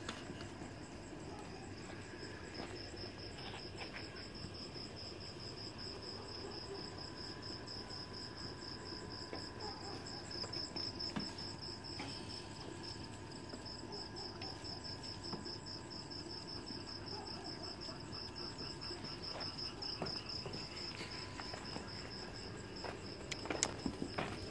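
Cricket chirping in a steady, fast, high-pitched trill that breaks off briefly about halfway through, with a few sharp clicks near the end.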